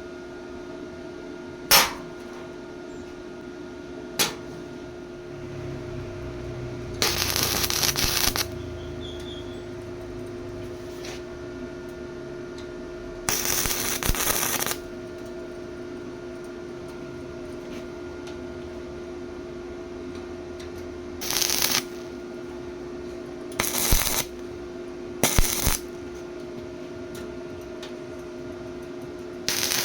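Metalworking shop sounds: a steady machine hum, two sharp metallic clicks, and about six short rasping, hissing bursts of a second or so each.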